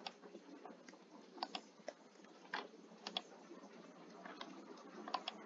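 Faint, scattered clicks of a computer mouse and keyboard while a value is entered: about ten sharp single clicks, some in quick pairs.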